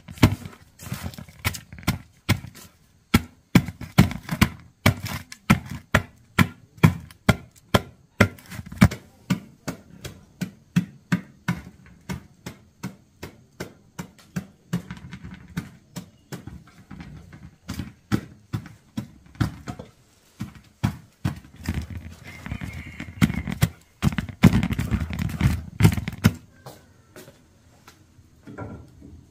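A wooden pestle pounding dry white lumps in an aluminium pot: a steady run of dull thuds, about two a second, that stops a few seconds before the end.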